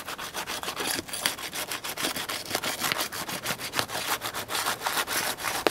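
Steel flat roof bar scraping and prying under asphalt shingles in quick, repeated strokes, working loose shingles held down by their sticky adhesive underside.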